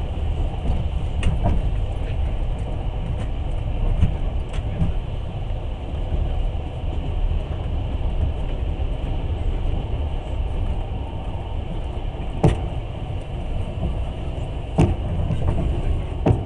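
Passenger train running along the track: a steady low rumble of the moving carriage, with a few sharp knocks scattered through it.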